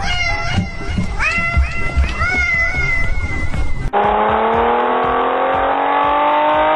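A cat meowing several times over a music beat. About four seconds in, this cuts abruptly to a muffled, steady drone that rises slowly in pitch, like an engine revving up.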